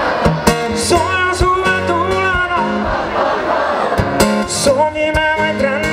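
Live pop band music: a male singer's voice over strummed acoustic guitar and drum hits, with the crowd faintly heard.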